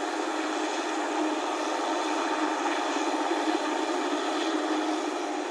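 Helicopter's turbine engine and rotors running steadily at a constant level, with no sudden change.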